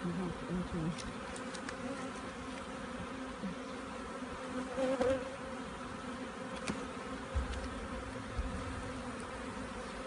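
Honeybees of a large, busy colony buzzing over an open hive box: a dense, steady hum. A few faint clicks as a metal hive tool works against the wooden frames.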